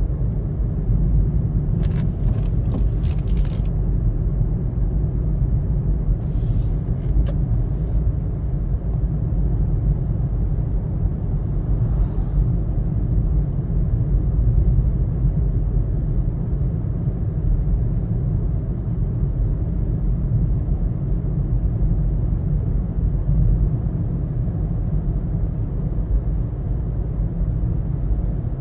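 Steady low road and engine rumble of a car driving, heard from inside the cabin, with a few brief high clicks and hisses about two seconds in and again around six to eight seconds in.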